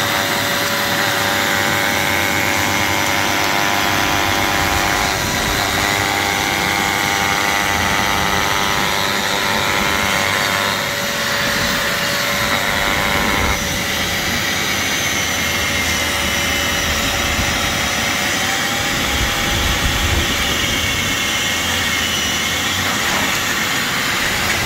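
Angle grinder running steadily with its blade in the mortar joints of a brick wall, grinding out the old mortar for repointing: a continuous high motor whine with the grind of the blade in the joint.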